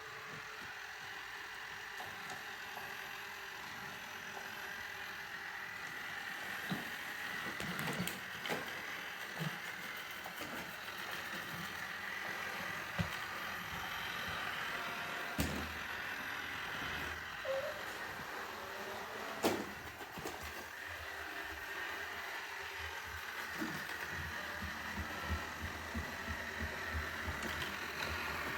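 Roomba robot vacuum running with a steady whir from its motor and brushes. A few sharp knocks come a few seconds apart, as its bumper hits things.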